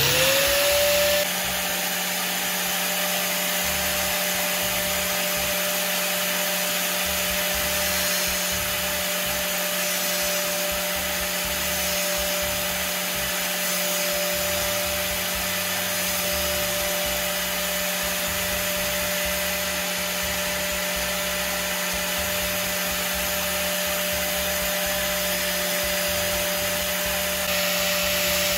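An electric power tool's motor spins up with a quickly rising whine at the start, then runs at a steady high pitch with a constant hiss over it.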